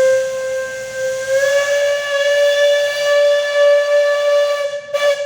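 Steam locomotive whistle blowing one long blast over a hiss of steam, its pitch rising slightly about a second in, with a brief break near the end.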